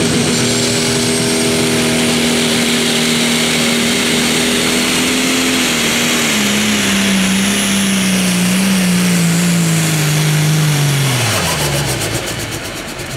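Pro Stock pulling tractor's turbocharged diesel engine at full throttle under load. Its pitch holds steady, then sags lower from about five seconds in as the engine bogs down. Near the end the pitch falls quickly and the sound gets quieter.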